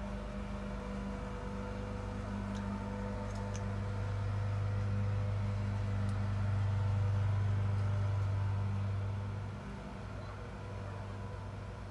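Steady low mechanical hum that swells in the middle and eases off shortly before the end, with a few faint clicks.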